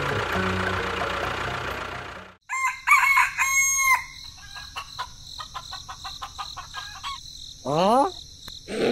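A machine's engine runs steadily and cuts off abruptly about two seconds in. A rooster crows loudly for about a second and a half, followed by chickens clucking, and a short rising call near the end.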